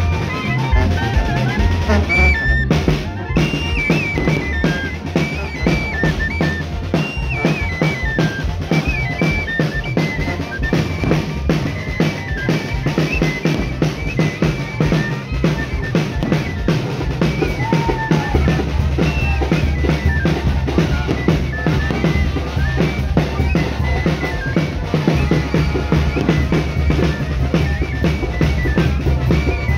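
Street brass band playing fast dance music: a snare drum and a bass drum with a cymbal mounted on top drum without a break, under a stepping melody from trumpets and a clarinet.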